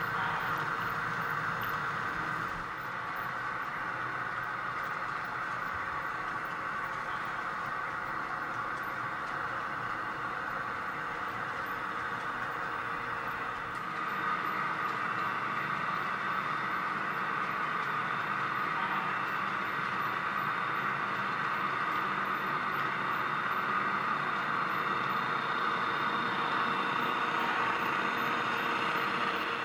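HO scale model diesel locomotives running on the layout, making a steady mechanical, engine-like drone. It drops a little in level about three seconds in and rises again about fourteen seconds in.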